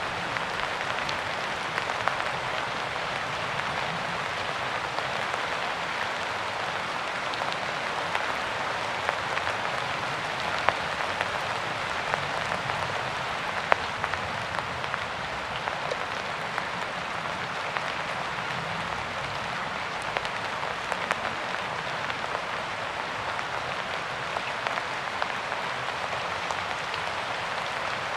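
Steady rain falling, with many individual drops pattering and ticking on a surface.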